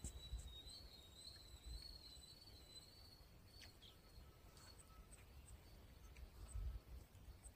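Near silence: faint riverside ambience with a low rumble, a thin high wavering tone through the first half that fades out, and a few short, high bird chirps scattered through.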